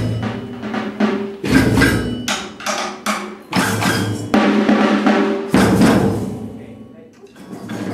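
Batucada percussion ensemble of drums, including bass drum and snare, playing loud group strikes in short bursts with brief gaps between them. The ringing dies away near the end, and playing starts again just before the end.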